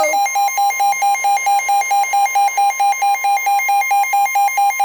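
NOAA Weather Radio sounding an Emergency Alert System severe thunderstorm warning: the steady 1050 Hz warning tone, with a fast, evenly pulsed alarm beep over it.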